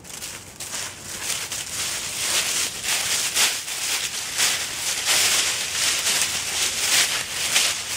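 A horse's hooves and a man's footsteps crunching and rustling through dry fallen leaves, a dense crackle that grows louder over the first couple of seconds as the horse moves close.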